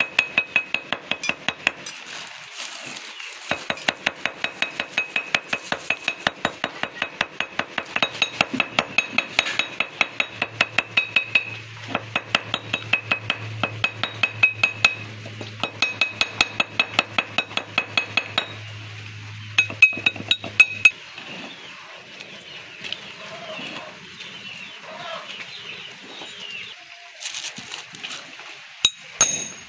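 A small hammer tapping lightly and rapidly, about three strikes a second with a metallic clink, to cut a homemade cardboard gasket by tapping it around the edge of an oil seal. The tapping stops about two-thirds of the way in, leaving a few softer handling sounds.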